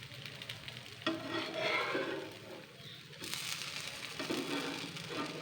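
Dosa batter sizzling on a hot griddle, with a spatula scraping over the pan in three short spells.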